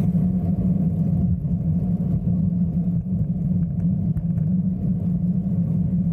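A vehicle engine running steadily, heard as a low, even drone.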